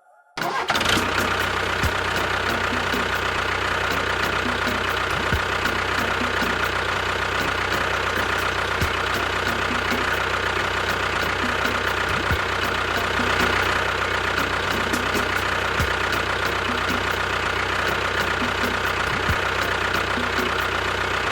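An engine running steadily, starting abruptly and cutting off abruptly, with a low thud about every three and a half seconds.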